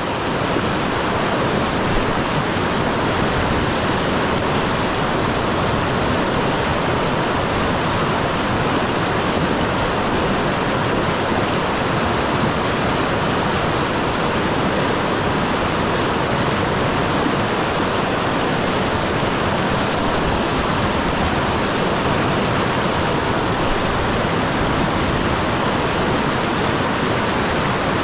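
River rapids rushing over rocks: a steady, loud wash of white water.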